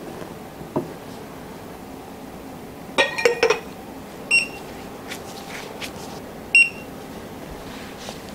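Digital coffee scale beeping twice, two short beeps about two seconds apart, as it is tared to zero and its brew timer is started. Just before, a quick cluster of clinks.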